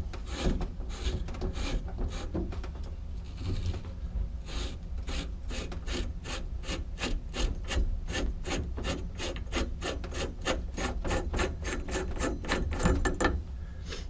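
Chrome sleeve of a shower faucet being twisted off the threaded valve stem by hand: a scraping rasp of metal on metal threads. It starts irregular, then settles into quick even strokes about four a second, and stops shortly before the end.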